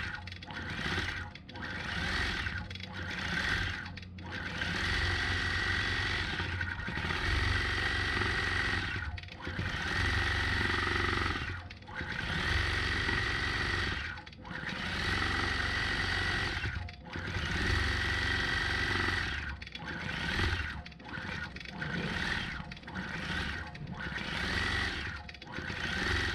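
Longarm quilting machine stitching, its needle running in stretches of one to three seconds with brief stops between them.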